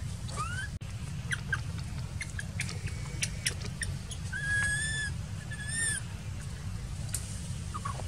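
Short, high-pitched animal calls: a rising call near the start and two level, whistle-like calls about four and a half and six seconds in, with brief chirps between them, over a steady low rumble.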